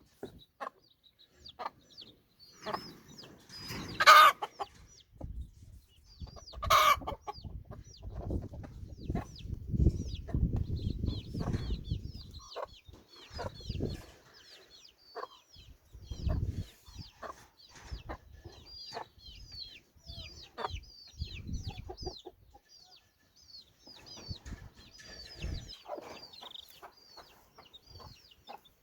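Chickens clucking and calling, with many short high chirps throughout and a louder call about 4 seconds in and again about 7 seconds in. Low rumbling and knocking noises come and go in between.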